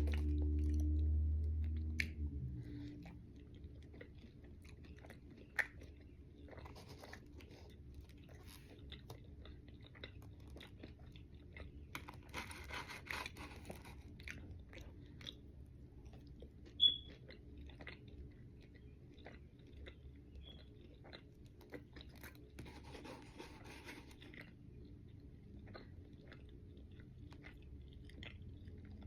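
Close-up chewing of Eggo blueberry waffles, with soft wet mouth sounds and small crunches and clicks. A low steady hum is the loudest sound at first and fades out about two seconds in.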